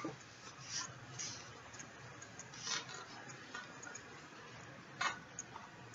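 Faint room noise with three short, soft clicks, about two seconds apart.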